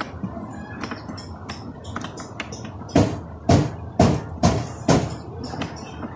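Clicks and knocks of hard plastic as control knobs are pressed back onto a portable speaker's front panel, with five sharper knocks about half a second apart in the middle.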